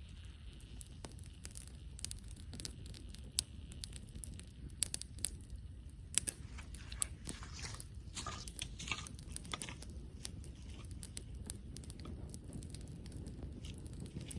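Wood campfire crackling, with sharp pops scattered throughout. About six to ten seconds in, a denser stretch of crunching, rustling noise sounds over the crackle.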